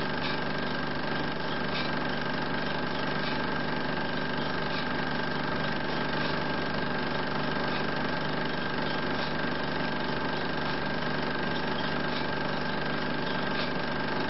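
16 mm film projector running: an even, unbroken motor whir with a steady hum.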